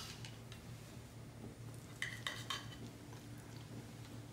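Knife and fork clinking against a ceramic dinner plate while cutting pot roast: a few light clinks, with a quick cluster of them about two seconds in.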